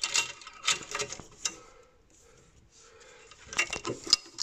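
Clicks and light metallic rattles of hand work on small screws and fittings inside a gas boiler's casing. They come in two clusters, one at the start and one near the end, with a quiet spell between.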